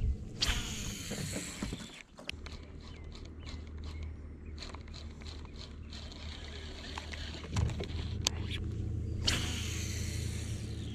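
Bow-mount Minn Kota electric trolling motor running with a steady low hum, cutting out briefly about two seconds in and then coming back, stepping up in strength about three-quarters of the way through. Scattered light clicks over it.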